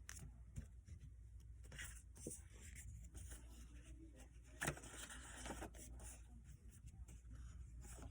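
Near silence: room tone with faint scattered rustles and light clicks, and one sharper click about halfway through.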